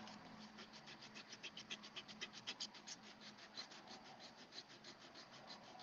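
Faint, rapid scratching of a small hand tool rubbed back and forth along a fold in white card stock, about seven strokes a second, burnishing the crease.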